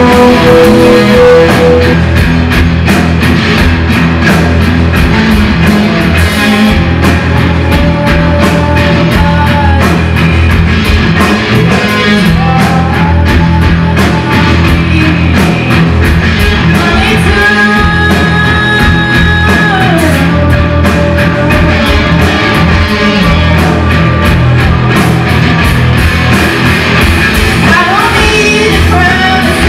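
A live rock band playing loud and without a break: electric guitars over a drum kit.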